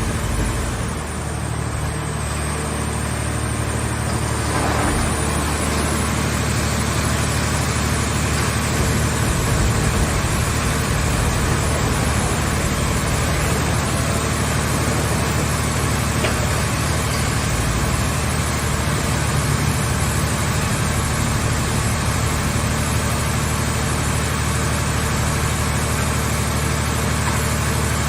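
Engine of a mobile car-shell baler running steadily, a constant low drone.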